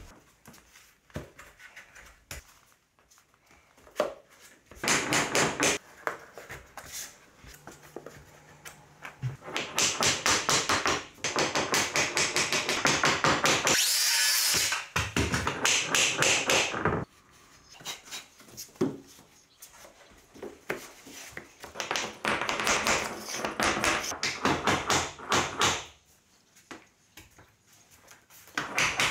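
Rapid runs of sharp taps and knocks as flooring planks are tapped and knocked into place. About halfway through there is a short burst from a power saw cutting a plank.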